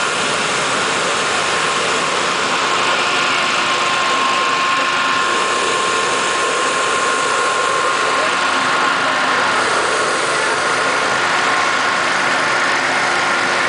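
Hot air balloon's propane burner firing into the envelope during inflation: a loud, steady roar with a steady engine-like drone in it, unchanging throughout.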